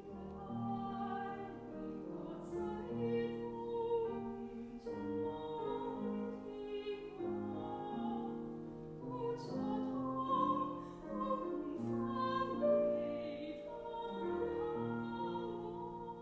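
Classical-style vocal music: an operatic singing voice over piano and instruments, in slow sustained notes.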